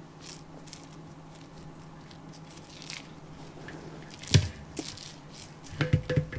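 Soft rustling and handling noises over a low steady hum, with one sharp knock a little past four seconds in and a few more clicks and knocks near the end.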